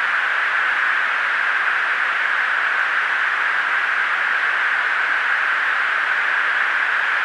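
Steady hiss of a fighter jet's cockpit intercom recording, an even thin static with no voices and no changes.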